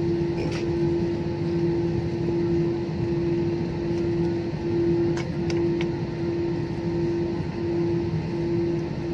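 Jet airliner cabin noise as the plane rolls slowly on the runway after landing: a steady engine hum with a lower drone beneath it and small, repeated dips in the hum.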